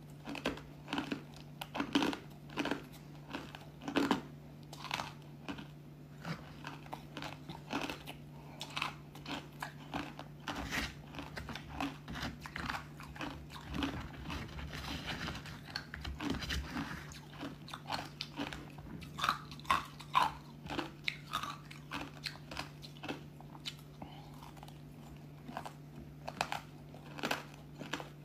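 Close-up crunching and chewing of crisp pieces of ice dusted with matcha powder: many sharp, irregular crunches throughout, fewer and softer through the middle stretch.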